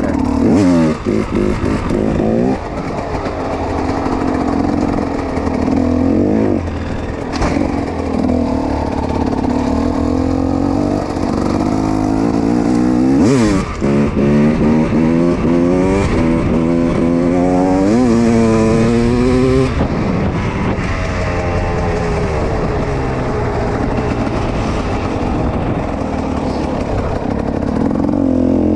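Dirt bike engine revving and easing off, its pitch climbing in several quick rising runs about halfway through.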